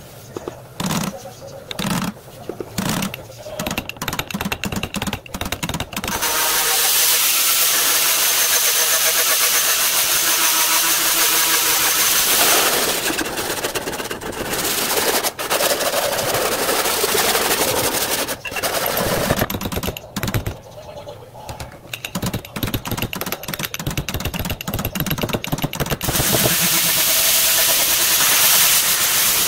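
A stud-welder shrinking tip heating a stretched steel quarter panel, buzzing in short bursts about once a second. About six seconds in, an angle grinder starts grinding the steel sheet, running steadily with a thin high whine, pausing and restarting several times.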